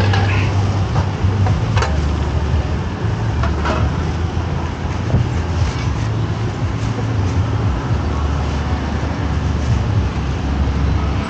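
Road traffic noise: a steady low engine rumble with a broad background hiss, broken by a few faint clicks and knocks.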